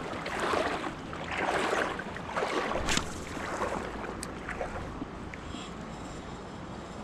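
Shallow creek water sloshing and splashing around wading legs, in uneven swells over the first three seconds, then settling to a steady low rush. A short sharp click about three seconds in.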